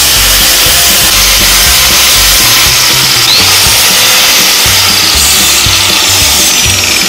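Angle grinder with a sanding disc grinding a rosewood knife handle, running steadily with a loud grinding hiss as the wood is shaped and smoothed.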